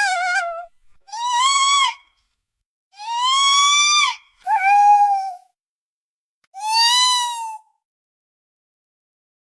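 A toddler whining: a run of drawn-out, high-pitched whiny cries, each about a second long, with short silent pauses between them. The first trails off just after the start, four more follow, and each rises slightly in pitch and drops off at the end.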